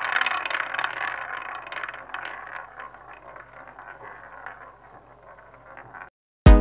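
Roulette wheel spinning, its ball clattering in a dense run of small clicks that fades and thins to scattered ticks as it slows, cut off short about six seconds in. An electronic drum beat starts right at the end.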